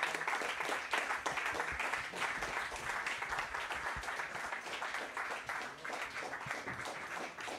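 Audience applauding, a dense patter of many hands clapping that eases off slightly toward the end.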